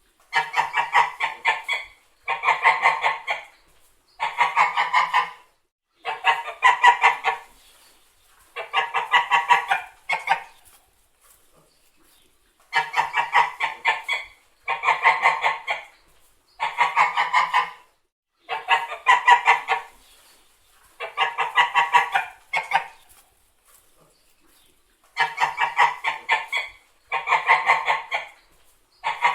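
Domestic white geese honking: harsh, rattling calls in bursts of about a second, coming every two seconds or so, with two longer pauses.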